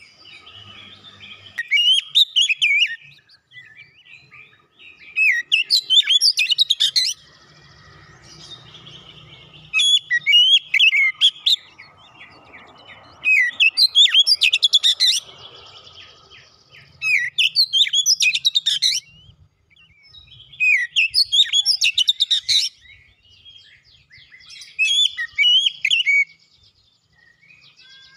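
Caged oriental magpie-robin (kacer) singing in full voice: loud, rapid, varied whistled phrases in about seven bouts of one to two seconds each, with short pauses between them.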